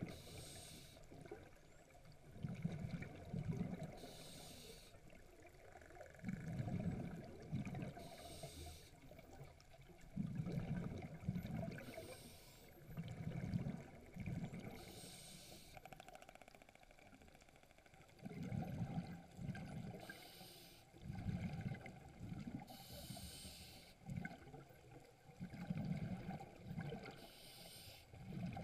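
A scuba diver breathing underwater. Each breath in is a short hiss, and each breath out is a longer rumble of bubbles, repeating every few seconds.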